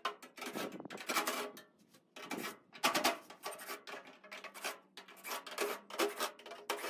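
Sheet-metal floor pan being worked out of an early Ford Bronco body: metal scraping and rattling in three irregular bursts.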